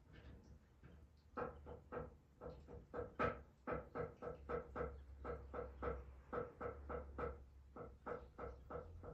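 Rapid, uneven series of knocks, about three a second, starting about a second and a half in, each with the same short ringing tone, over a steady low hum.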